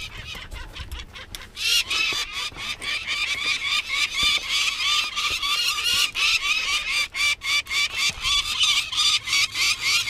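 Peregrine falcon calling a rapid, harsh series of repeated notes, several a second, starting about a second and a half in and going on without a break. The calls come at a climber on the nest ledge.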